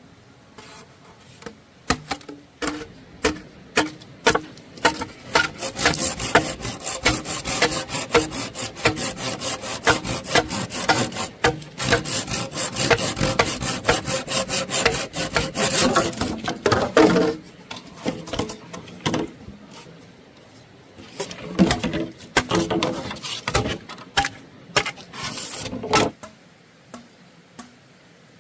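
Rapid rough scraping strokes, many a second, in a long spell and then a shorter one after a pause.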